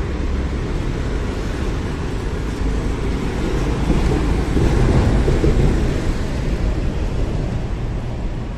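City street ambience: a steady traffic rumble mixed with wind buffeting the microphone, swelling a little for a couple of seconds near the middle.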